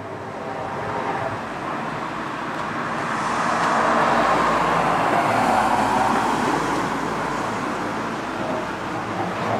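Road traffic noise: a vehicle passing, its tyre-and-engine noise swelling to its loudest around the middle and easing a little toward the end.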